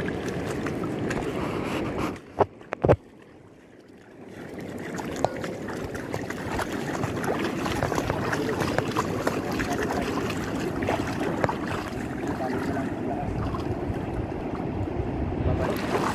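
Water sloshing and splashing as people wade through shallow river water, a steady noisy wash with small splashes throughout. A few sharp knocks come about two to three seconds in, followed by a brief quieter gap of about a second before the sloshing resumes.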